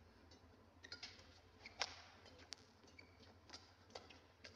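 Faint, irregular sharp ticks of badminton rackets striking the shuttlecock during a rally, several strokes spaced roughly half a second to a second apart.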